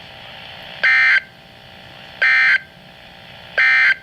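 NOAA Weather Radio EAS end-of-message signal: three short bursts of SAME digital data tones, each about a third of a second long and about a second and a half apart, over faint radio hiss. The bursts mark the end of the severe thunderstorm warning broadcast.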